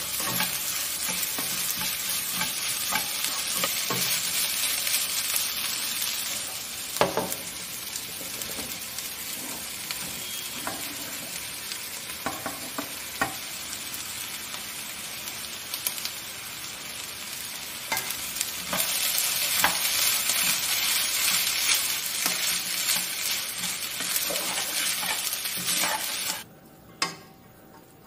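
Egg fried rice sizzling in a nonstick pot while a spatula stirs and scrapes through it, with occasional sharp taps of the spatula on the pot. The sizzle quietens for a stretch in the middle, grows louder again, and cuts off abruptly near the end.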